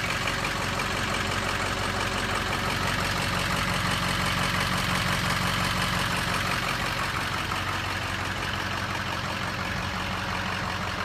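2006 Ford F-350 Super Duty's 6.0L Power Stroke turbo diesel V8 idling steadily.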